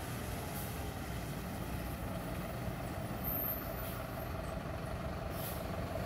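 Intercity coach's diesel engine running slowly with a steady low rumble, with two short air-brake hisses, one just after the start and one near the end.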